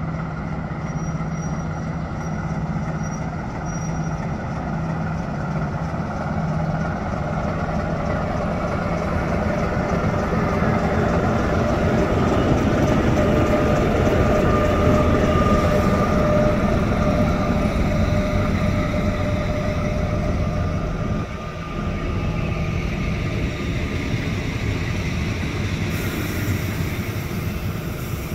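LDH 45 diesel-hydraulic shunting locomotive running past at low speed, hauling double-deck coaches. Its engine grows louder towards the middle as the locomotive passes close, then the coaches' wheels roll by on the rails.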